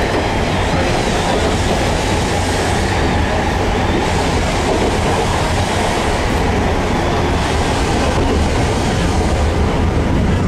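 Heritage tram running steadily along the track, heard from on board: a continuous rumble of wheels on rail and running gear.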